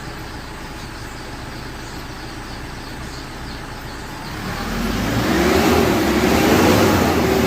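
Kia Bongo III's J3 CRDi four-cylinder diesel idling, then revved up a little after four seconds in and held at raised revs that swell and ease. The engine is running again after a hard-start fault in its fuel system was fixed.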